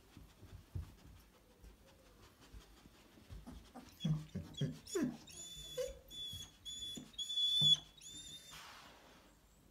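Malinois whining: faint snuffling and shuffling, then from about five seconds in a run of five short, high-pitched squeals in quick succession, with a short breathy sniff after them.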